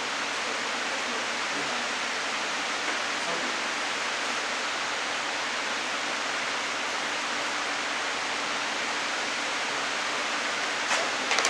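Steady hiss of even noise at a constant level, with two or three short clicks near the end.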